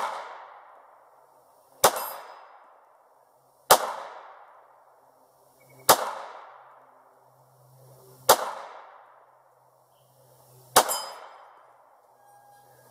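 Ruger American 9mm pistol fired in slow single shots, five in all, about two to two and a half seconds apart, each shot trailing off in a short echo.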